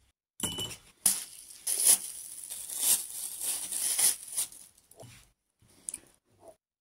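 Clear plastic bag crinkling and rustling as it is squeezed and twisted in the hands around a lemon, for about three and a half seconds, then a few faint handling sounds.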